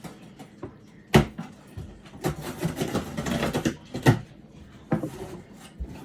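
A cardboard box being handled and opened: two sharp knocks with a stretch of rustling about a second and a half long between them, then a lighter knock.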